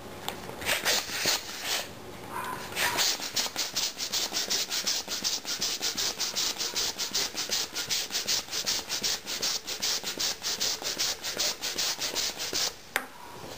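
Hand balloon pump inflating a latex balloon: a quick puff of air with each stroke. A few slower strokes come first, then steady pumping at about four strokes a second that stops about a second before the end.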